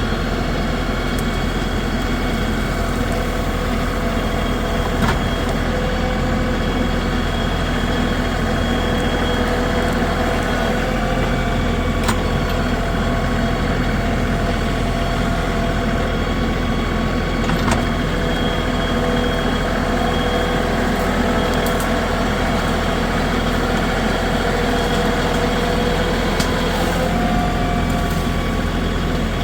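LS tractor's diesel engine running steadily at a constant speed, its tone shifting slightly around eleven seconds in and again near the end.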